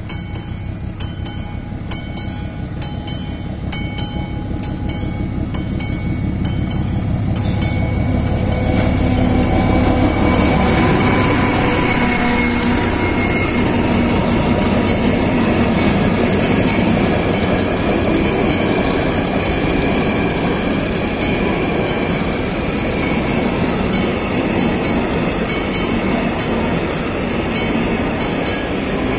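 Level-crossing warning bell ringing in even, steady strokes as a freight train approaches. About nine seconds in, a Bardotka diesel locomotive (Czech class 749/751) passes with its engine running loud, followed by loaded hopper wagons rolling by with steady wheel rumble and a high wheel squeal.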